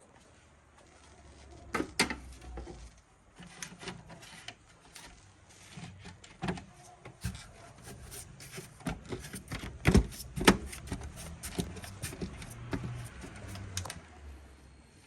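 Irregular clicks, knocks and rubbing of hand work, with the sharpest knocks about ten seconds in.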